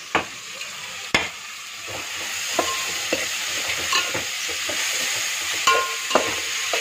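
Vegetables frying in oil in a metal pot, sizzling, while a metal slotted spoon stirs them and clinks against the pot several times. The sizzle grows louder about two seconds in.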